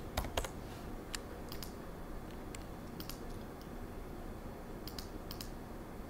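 Computer keyboard keys tapped in short, irregular bursts, with two louder clicks just after the start.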